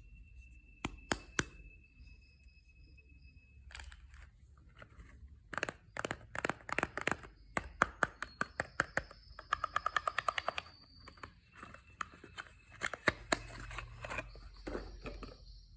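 Soap packaging being opened by hand: wrapper tearing and crinkling in a run of sharp crackles and snaps, thickest in the middle.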